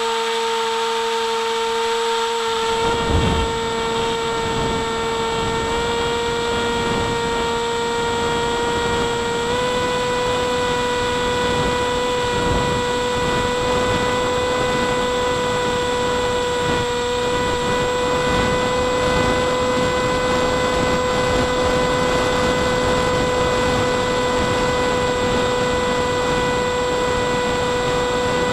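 Brushless electric motor (Emax 2805 2800kv) spinning a small APC 5x5E propeller, a steady high whine heard from on board the flying wing, with wind rushing over the camera. A brief knock comes about three seconds in, after which the wind noise stays up; near ten seconds the whine steps up slightly in pitch.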